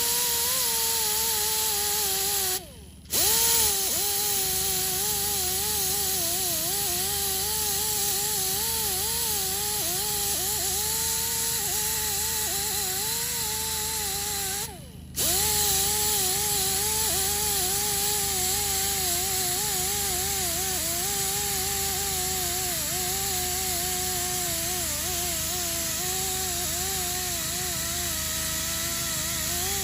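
Handheld power tool spinning a red surface-conditioning disc against an aluminium alloy wheel, stripping the curb-rashed and badly repaired areas to bare metal. A steady whine whose pitch drops and wavers as the disc is pressed in, stopping briefly twice and starting straight up again.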